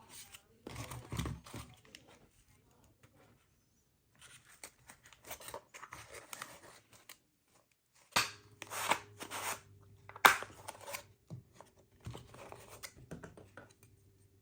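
Scissors cutting through cardboard in several bursts of snipping and scraping, with pauses between cuts and a couple of sharper snaps midway.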